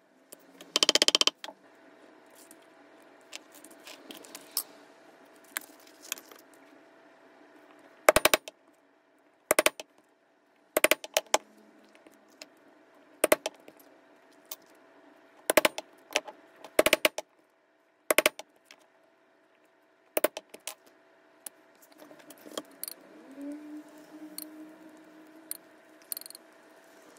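Sharp taps and clicks of hand tools on a workbench during leatherwork, scattered irregularly with a quick cluster about a second in. A short squeaky rubbing sound comes near the end.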